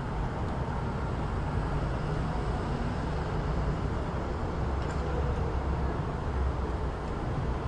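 City street ambience: a steady low rumble of traffic, with a faint tick about five seconds in.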